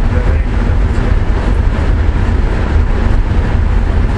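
Steady, low rumble of a VIA Rail passenger train rolling on the track, heard from inside the passenger car.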